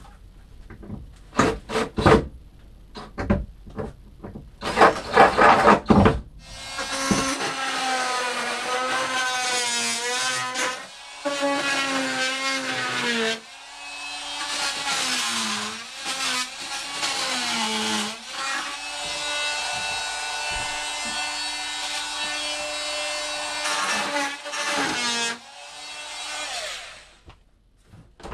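A few sharp knocks, then a corded handheld power tool runs in long stretches against the fiberglass lip of a boat's icebox liner. It stops and restarts several times, and its motor pitch sags and recovers as it loads up.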